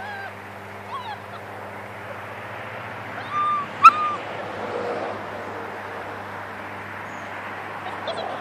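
German Shepherd puppies whimpering and yipping: a few short high whines scattered through, the loudest two close together about three and a half seconds in. A steady low hum and outdoor background noise run underneath.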